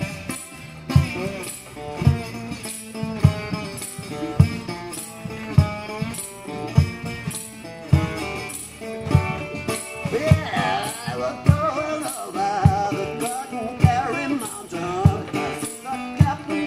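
Metal-bodied resonator guitar played in a steady rhythmic groove, with a low thump on every beat a little faster than once a second and a jingling, tambourine-like shimmer over it. About ten seconds in, a wavering melody line joins above the guitar.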